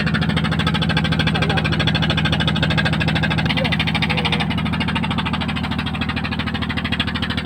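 Engine aboard a bagan fishing boat running steadily, with an even fast thudding of about eight beats a second.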